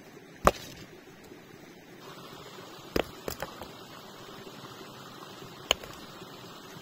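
Three sharp knocks spread over a few seconds, the middle one followed quickly by two lighter taps, over a steady low background noise.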